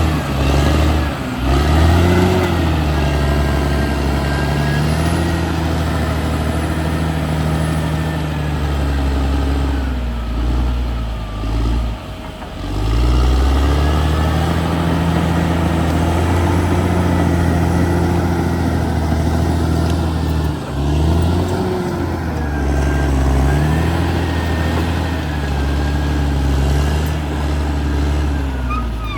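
Caterpillar D6R XL bulldozer's diesel engine working under load, its revs sagging and picking back up about a second in, around the middle, and about two-thirds of the way through. A thin wavering whine runs above the engine.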